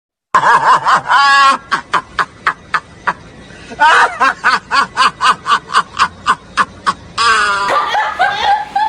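Laughter in rapid, rhythmic ha-ha pulses of about four a second, faint at first and then loud from about four seconds in. Voices follow near the end.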